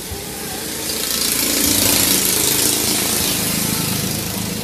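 An engine passing by: a rushing noise that swells to its loudest about two seconds in, then fades.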